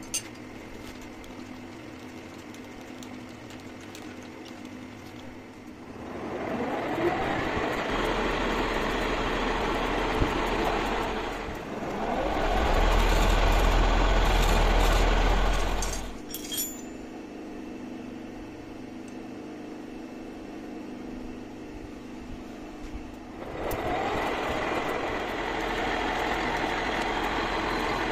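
Metal lathe running: a steady motor hum, rising into two louder, noisier spells with a low rumble, from about six to sixteen seconds and again from about twenty-three seconds on.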